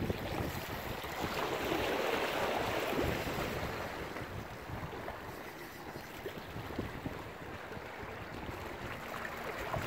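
Steady rush of wind on the microphone mixed with water washing, swelling louder for a couple of seconds near the start.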